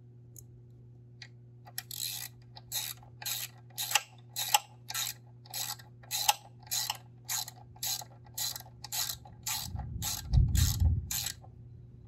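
Socket ratchet wrench clicking in regular strokes, about two a second, as it turns a bolt on a motorcycle footpeg bracket. About ten seconds in, a low rumble of thunder comes in under the last strokes.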